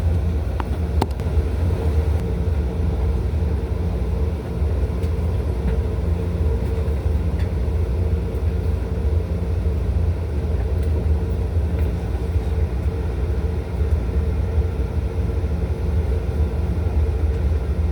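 Taroko Express tilting electric train running at speed, heard inside the passenger car: a steady low rumble of wheels on rail with a steady hum over it.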